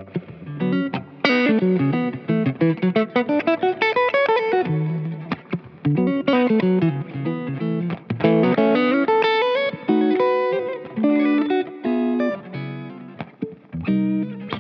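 Vola OZ RV TNC electric guitar played through an amp with effects, in fast runs of notes that climb and fall in pitch, then shorter lower notes and chords in the second half.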